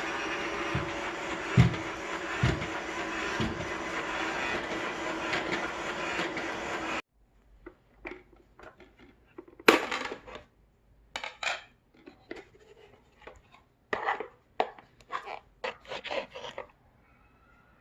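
iSweep S320 robot vacuum running with a steady motor and brush noise and a few low thumps, then cutting off abruptly about seven seconds in. After it stops come scattered short clicks, knocks and scrapes.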